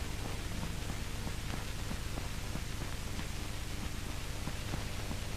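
Steady hiss with a low hum and faint crackles: the background noise of an old film soundtrack, with no dialogue or music over it.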